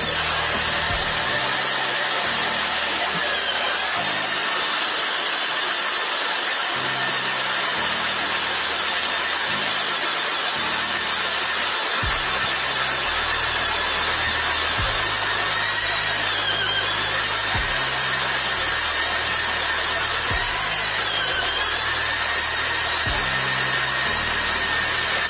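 Evolution magnetic drill boring through steel plate with an annular cutter: a steady motor whine whose pitch dips briefly three times.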